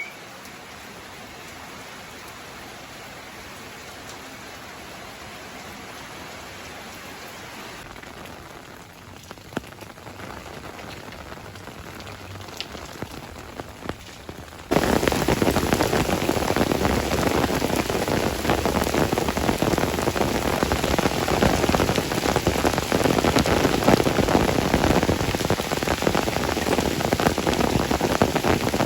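Rain falling, steady and moderate with a few distinct drops, then suddenly much louder as a heavy downpour about halfway through.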